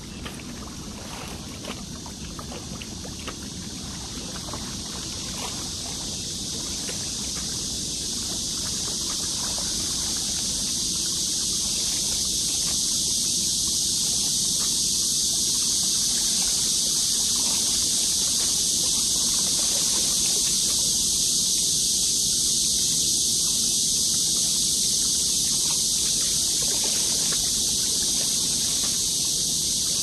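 Riverside ambience: small waves lapping against the rocky bank under a steady rushing hiss of wind, which grows louder over the first half and then holds steady, with a low rumble beneath.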